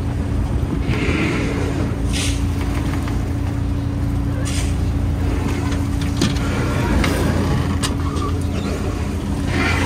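Fishing boat's engine running steadily with a low hum. Every second or two there is a brief watery swish as scoops of wet whitebait are tipped into plastic baskets.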